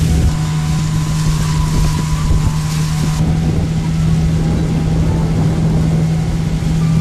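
Outboard motor of a river fishing boat running steadily at cruising speed, a constant low drone, with wind rumbling on the microphone.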